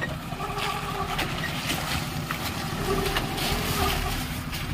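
Maruti Suzuki Gypsy's engine running as the 4x4 crawls slowly over a rocky riverbed, with repeated sharp crunches and knocks of stones under its tyres.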